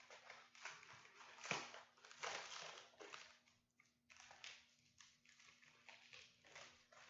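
Coin package being unwrapped by hand: irregular crinkling and rustling of the wrapping, with a sharp click about one and a half seconds in.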